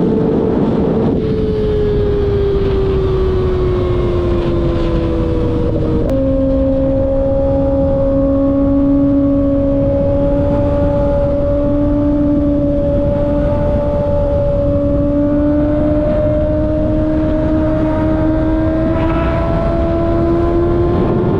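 Kawasaki ZX-6R's 636 cc inline-four running through an M4 slip-on exhaust under way, its note easing down, dropping suddenly about six seconds in with a gear change, then holding and slowly climbing. Wind rushes over the microphone throughout.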